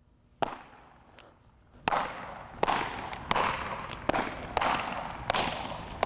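Baseballs smacking into leather fielding gloves during a game of catch: about seven sharp pops, each echoing around a large indoor hall.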